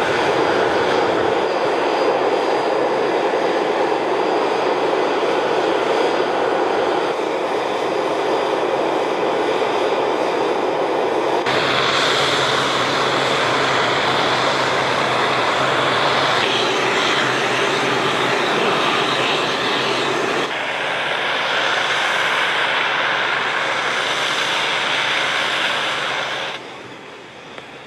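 Engines of heavy military launcher trucks running, a loud steady noise that changes character abruptly several times and falls away near the end.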